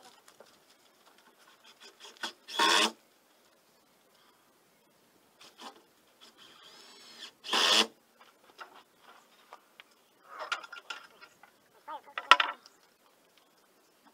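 Short scraping or rasping strokes in the middle of workshop work. Two loud strokes of about half a second come roughly five seconds apart, among light knocks and smaller scrapes near the end.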